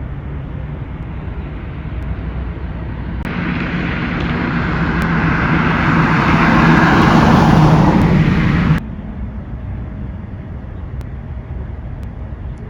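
Steady rumble of a motor vehicle, swelling louder for several seconds in the middle and then dropping off suddenly, after which the lower rumble goes on.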